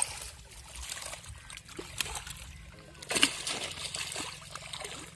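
Water splashing and trickling irregularly, with a louder splash about three seconds in.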